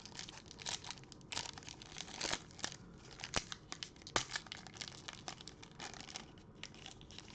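Trading-card pack wrapper crinkling and being torn open: a run of irregular sharp crackles.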